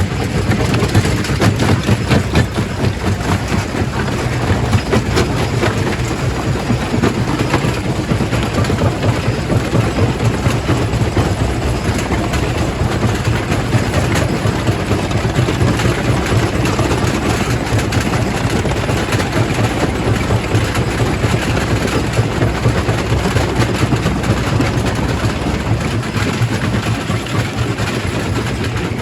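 Quarry primary rock crusher running under load: a steady low machine drone with continual cracking and knocking of stone being broken.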